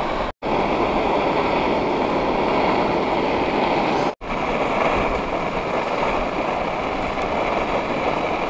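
Strong wind blowing, a steady loud rushing noise, cut off twice for a split second.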